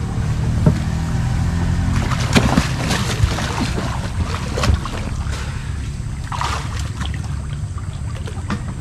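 Small river fishing boat under way: a steady low rumble with a few scattered knocks against the hull and a short rush of water about two-thirds of the way through.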